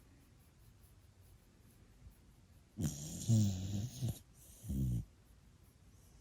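American Cocker Spaniel snoring: a long snore of about a second and a half starting near three seconds in, then a short one about half a second later.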